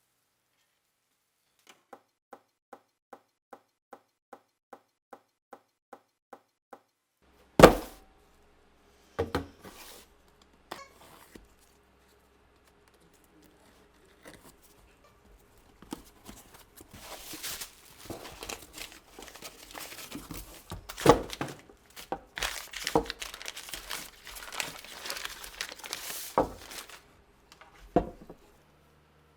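A row of short, evenly spaced beeps, about two a second, then a loud knock and, after a pause, rustling and handling of parts on a workbench with several sharp clunks.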